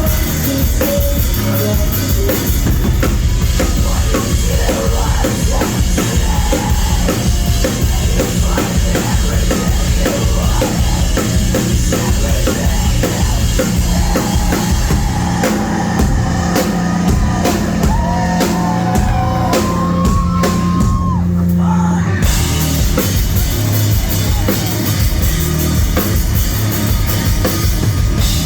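Loud live rock band playing, with busy drum kit and heavy guitars, heard through a phone's microphone. Past the middle the drums drop away under a held low chord with a sliding melodic line over it, and then the full band comes back in.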